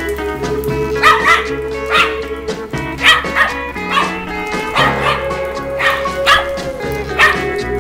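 A dog barking about once a second over background music with steady held notes.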